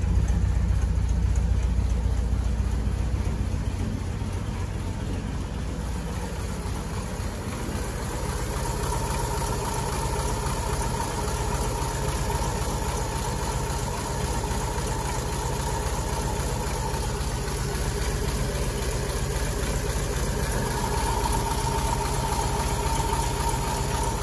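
1935 Ford flathead V8 idling smoothly while it warms up after a cold start. At first it is a deep exhaust note at the tailpipe; about four seconds in this fades, and the engine is heard from under the hood, lighter and more mechanical, with a steady whir.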